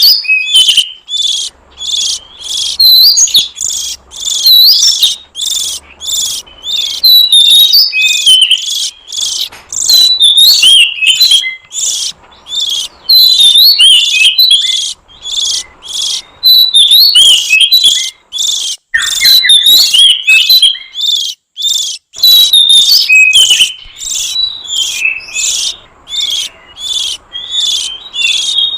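Oriental magpie-robin (kacer) song used as a lure call: a loud, fast stream of varied high whistled and chattering notes with short gaps, and a brief lull about 21 seconds in.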